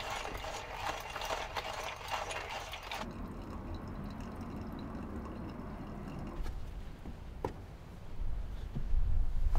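Hot water poured in a thin stream from a gooseneck kettle into a pour-over coffee dripper. It is preceded by a few seconds of clicking and handling noise. A low rumble rises near the end.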